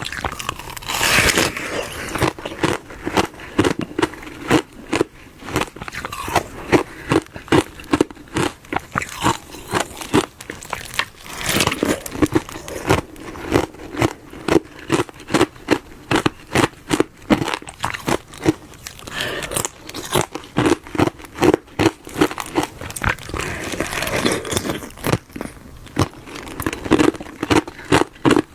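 Glove-shaped block of frozen ice being bitten and chewed close to the microphone: rapid crackling crunches throughout. Louder crisp bites come about a second in, near the middle, and twice in the last third.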